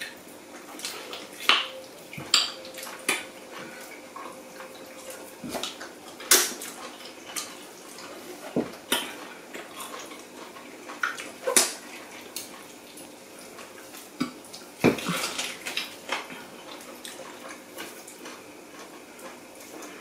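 Close-up eating sounds: irregular wet smacks, clicks and sucks of chewing and finger-licking, several sharper smacks standing out, with the odd knock of food or fingers against the plates.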